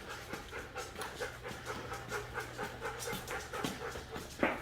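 A dog panting rapidly, about three to four breaths a second.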